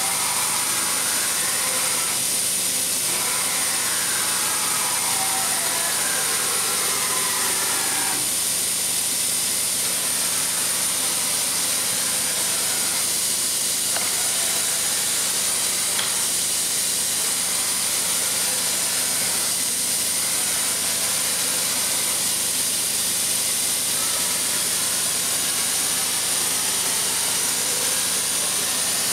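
Axis drives of a Daewoo Mynx 540 CNC vertical machining center whining as the table and spindle head traverse. The whine rises and falls in pitch several times in the first eight seconds, then changes in steps as later moves start and stop. A steady hiss and a constant high tone from the running machine lie under it.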